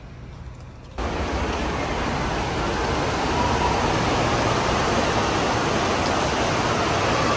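Steady rushing noise of an indoor water park hall, running water and general din with no clear single source, cutting in suddenly about a second in after quieter outdoor ambience.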